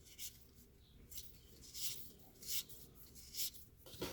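Baseball trading cards slid one at a time off a stack in the hand: about six soft swishes of card on card, less than a second apart.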